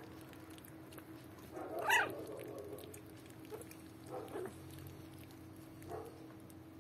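Newborn puppies squeaking and whimpering: one louder, rising high-pitched squeal about two seconds in, then a few fainter short cries.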